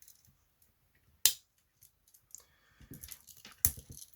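Victorinox Cadet pocket knife's tools clicking open and shut against the backspring: two sharp snaps about two and a half seconds apart, with lighter clicks and handling noise between.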